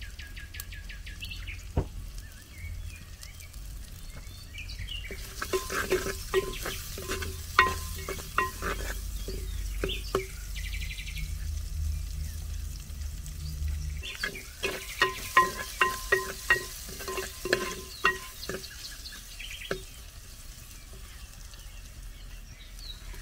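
Onion, green chili, pandan leaves and cinnamon frying in a clay pot, stirred with a ladle that clicks and knocks against the pot in two runs of rapid strokes. Birds chirp briefly at the start.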